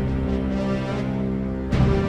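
Background music with sustained tones and a loud hit about three-quarters of the way through.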